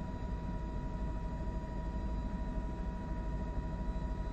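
News helicopter cabin noise heard through the crew's microphone: a steady low rotor rumble with a fast flutter, and a thin steady whine above it.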